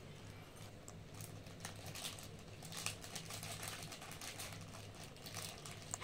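Faint scattered clicks and crunches of an Alexandrine parakeet nibbling a crunchy snack held in its foot, over a low steady hum.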